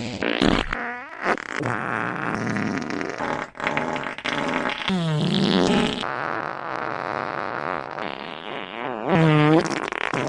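Fart sounds in quick succession with no gaps between them. Some are rough and raspy, others pitched and bending in tone, and a loud pitched one comes just after nine seconds.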